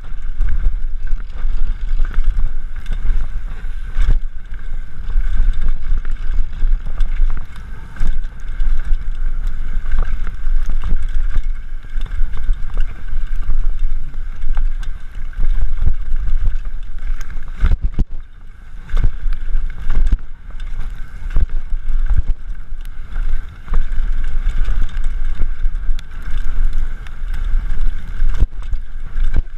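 Wind buffeting the microphone of a camera carried on a mountain bike riding downhill, over a steady rush of tyres on the trail and frequent rattling knocks from rough ground.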